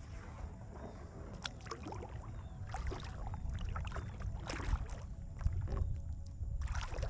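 Kayak paddle blades dipping and splashing into the water, four strokes about a second and a half apart, over a steady low rumble.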